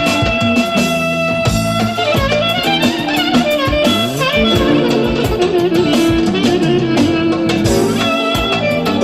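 Clarinet holding one long note for about the first two seconds, then playing a fast, ornamented folk-dance melody with quick runs and pitch bends. It plays over a band accompaniment with a steady beat.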